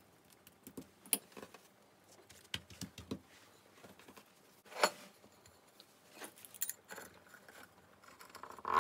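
Faint, scattered light clicks and taps of hand work on a countertop: a metal spoon spreading spinach filling on thin dough, and the dough being folded over by hand. One tap about five seconds in is a little louder than the rest.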